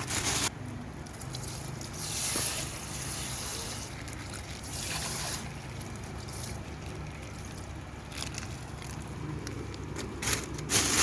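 Water trickling and sloshing in several short bursts over a steady low rumble, as herbal leaves are washed and water is added for the tea.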